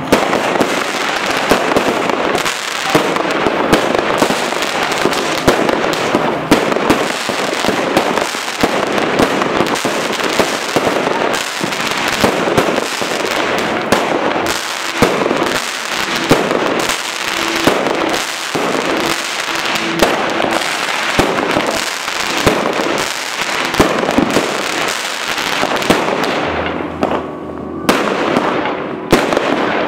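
200-shot consumer firework battery (cake) firing: a string of sharp shots and bursting shells about one to two a second over continuous crackling, the crackle thinning out near the end.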